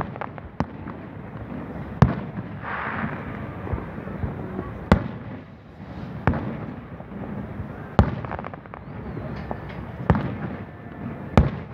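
Aerial firework shells bursting: a sharp bang every one to three seconds, with fainter pops and crackle between.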